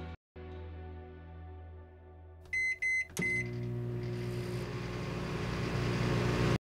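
Electronic logo sting: a held synth chord, then three short high beeps about two and a half seconds in, followed by a noisy swell over a low drone that grows louder and cuts off abruptly.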